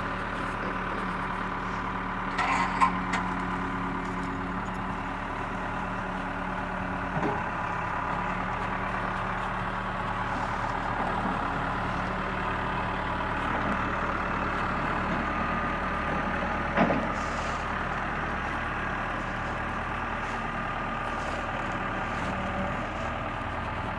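Backhoe's diesel engine running steadily, with a sharp clank a few seconds in and another about two-thirds of the way through.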